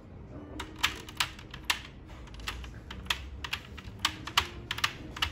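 A run of sharp, irregular clicks and taps, a dozen or more over about four and a half seconds, starting just over half a second in.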